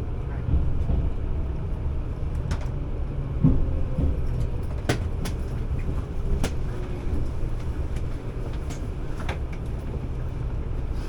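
Interior running noise of a JR 383-series limited express electric train on its final approach, slowing: a steady low rumble of the wheels on the rails with a faint motor whine falling in pitch. Scattered sharp clicks and ticks sound through it.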